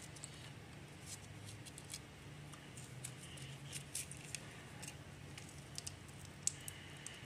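Faint crinkling and clicking of a plastic Velveeta cheese sauce pouch being squeezed out over a cup of macaroni, over a low steady hum.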